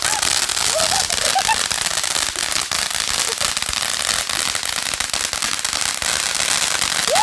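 Firecrackers going off in a dense, continuous run of rapid crackling pops.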